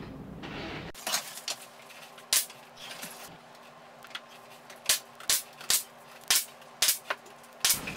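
Pneumatic finish nailer firing nails into stained wooden door trim: a string of sharp shots, most of them in quick succession less than a second apart in the second half.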